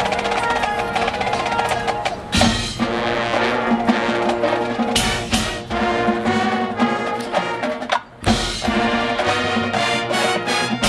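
Marching band playing, brass and drums together, with a loud accented full-band hit about two seconds in and a short break near the end before the band comes back in.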